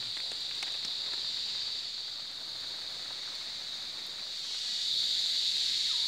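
Rainforest insect chorus: a steady high-pitched buzzing hiss that swells louder about four and a half seconds in.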